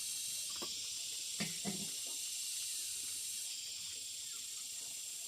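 A steady high hiss, easing slightly about three and a half seconds in, with a few faint clicks about a second and a half in.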